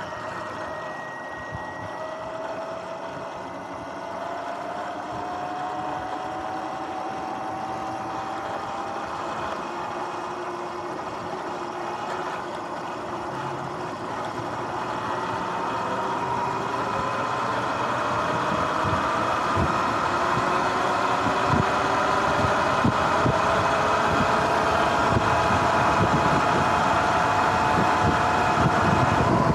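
Sur-Ron X electric dirt bike on the move: its motor whine rises slowly in pitch and grows louder as the bike gathers speed, over drive-chain noise that the rider thinks sounds a bit rough. Wind buffets the microphone more in the second half.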